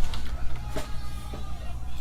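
Background music at a moderate level, with a few faint clicks.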